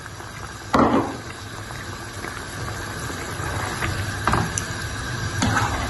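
Chicken yakhni stock simmering in a non-stick pan with soaked rice just added, a plastic spatula knocking and scraping against the pan as the rice is spread into the liquid. A louder knock or slosh about a second in, then a few lighter taps.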